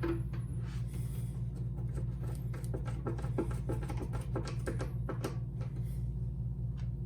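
Small clicks and taps of door-handle latch parts being handled and fitted back together, busiest through the middle, over a steady low hum.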